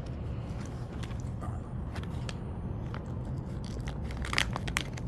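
Small scattered clicks and crackles of something being handled, with two sharper clicks near the end, over a steady low hum.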